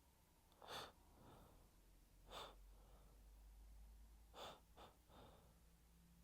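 A person with allergies taking short, sharp gasping breaths, four in all, the last two close together, each followed by a softer breath out.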